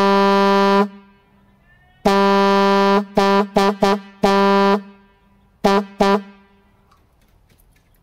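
Vintage International truck air horn, repaired and blown on compressed air, sounding a single steady tone in eight blasts: two long ones, three quick short toots, another long one, then two short toots. One trumpet bell is cracked at the base and held by hand while it sounds.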